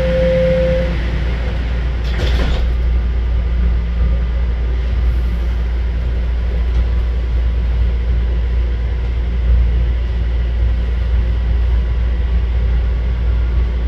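Toronto subway train running, a steady low rumble with a brief clatter about two seconds in.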